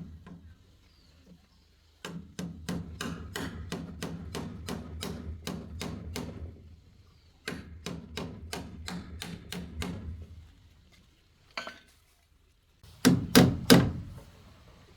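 Hammer blows in quick, even runs of about four strikes a second, three runs in all, the last short and loudest.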